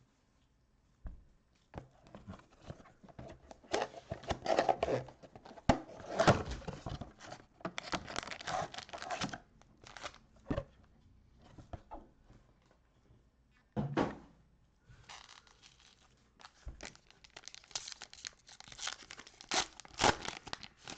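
A trading-card mega box being unwrapped and torn open: plastic shrink wrap and card packs crinkling and tearing in irregular bursts, with a few sharp knocks of the cardboard box.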